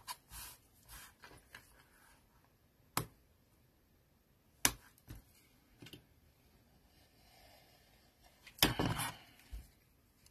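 Handling noise of card-making at a desk: small tools and paper being picked up and set down on a cutting mat, with a few sharp single clicks a second or two apart and a louder patch of knocks and rustling near the end.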